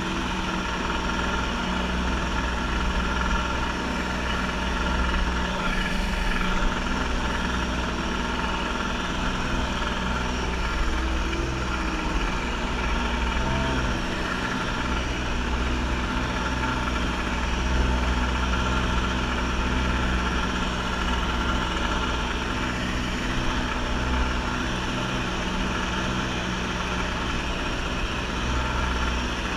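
Kawasaki JS550 stand-up jet ski's two-stroke twin engine running steadily at cruising speed, with water spraying off the hull.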